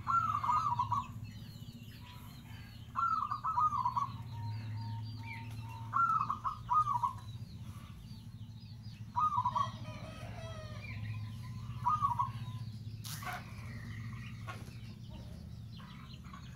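Zebra dove (perkutut) cooing: five short rolling phrases, one about every three seconds. Faint high chirping and a low steady hum run behind them.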